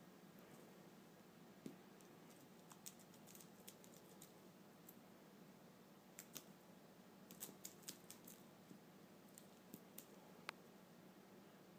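Near silence broken by faint scattered clicks and taps from a kitten at play with a feather toy, with a few small clusters of quick clicks.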